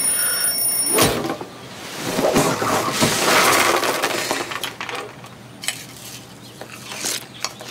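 Twin-bell alarm clock ringing, cut off by a sharp slap about a second in; then a loud clatter of cereal pieces scattering and spilling into a bowl for a couple of seconds, followed by a few light clinks of a spoon in the bowl.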